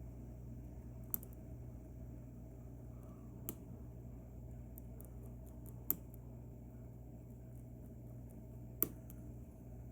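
Small sharp clicks from a lock and metal tools being handled, four of them a couple of seconds apart, over a steady low hum.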